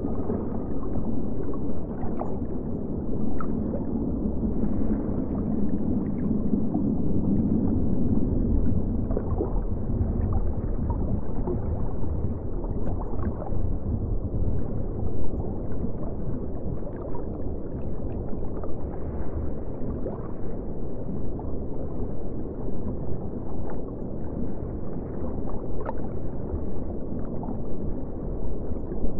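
Underwater ambience: a steady, muffled low rumble with gurgling and scattered faint clicks, and a low hum that swells for several seconds early on.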